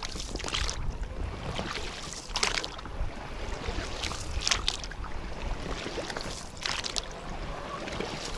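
Low wind rumble on the microphone, with a swishing rush about every two seconds.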